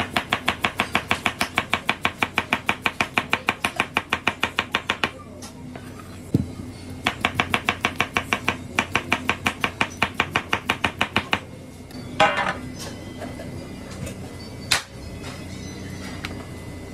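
Chef's knife rapidly slicing a potato on a plastic cutting board: quick, even chops at about six a second in three runs with short pauses between. A few scattered louder knocks follow near the end.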